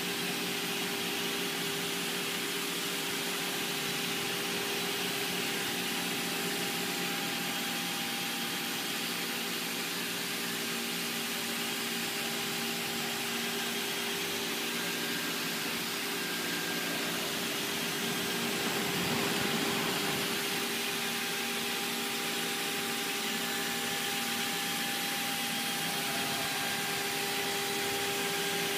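CNC router running: a steady whine from the spindle and machine over a continuous hiss, a little louder for a moment about two-thirds of the way through.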